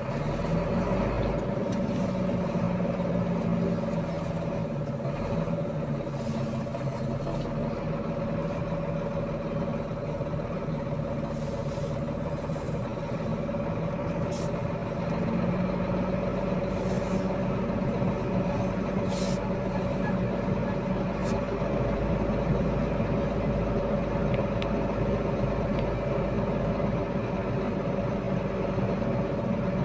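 Iveco boom truck's diesel engine running as the truck moves slowly, heard from inside the cab, with a steady whine above the engine. Several short hisses come in the middle.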